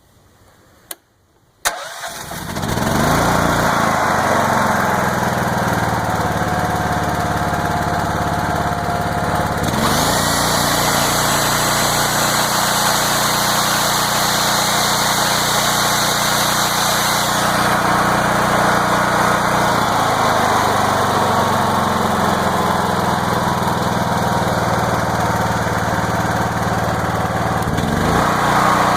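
Honda EM6500SX generator's engine starting about two seconds in, after a couple of sharp clicks, then running steadily, its pitch shifting a few times.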